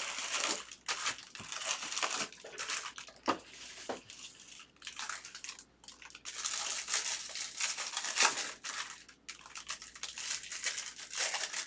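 Baseball card pack wrappers crinkling and being torn open, in irregular bursts of rustling with short pauses, as cards are handled.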